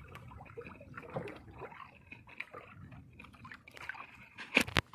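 Sea water sloshing and lapping against a small boat's hull, with scattered light knocks, and one louder sharp knock near the end.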